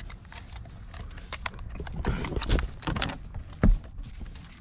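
Irregular clicks and knocks as metal crab tongs grip a blue crab and clatter against a wire crab net and wooden pier planks, with a louder thump about three and a half seconds in.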